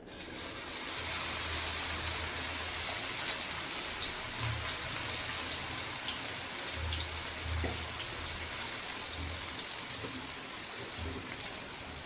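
Batter-coated bitter gourd slices sizzling and crackling in hot oil, starting suddenly as they are dropped in.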